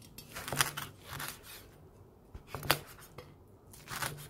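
Chinese cleaver chopping through roast pork belly with hard, burnt-crisp skin on a wooden cutting board: several sharp crunching cuts, each ending in a knock of the blade on the board.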